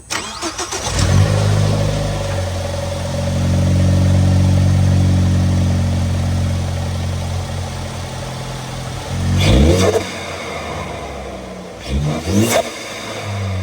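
2014 Ford Focus ST's turbocharged 2.0-litre four-cylinder starting and settling into a steady idle. About nine seconds in it is revved sharply, then blipped twice near the end, each throttle lift followed by a short turbo whoosh from the blow-off valve.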